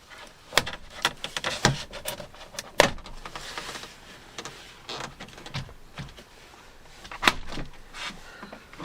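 Door trim panel being prised off a Land Rover Discovery 2 rear door: irregular sharp clicks and knocks as its plastic retaining clips pop free.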